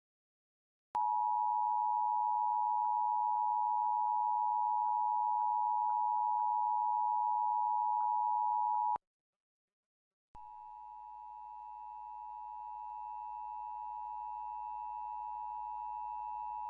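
Emergency Alert System attention signal: a steady two-tone alert of 853 and 960 Hz sounding for about eight seconds. It cuts off, and after a pause of about a second and a half a second, fainter attention signal starts over a low hum and hiss, as heard from another station's relay.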